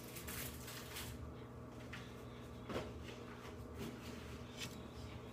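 Handling noises: rustling with a few soft knocks and clicks, over a steady low hum.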